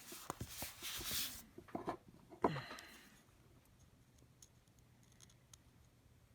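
Small parts and tools being handled on a work surface: scraping and rustling with a few light clicks, a sharp click about two and a half seconds in, then quiet.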